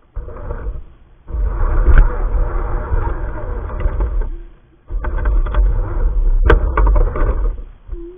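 Onboard sound of an electric RC crawler truck driving in three spurts with short pauses, its motor and gears running while stems and twigs scrape and crackle against it. Heard through a small onboard camera's microphone.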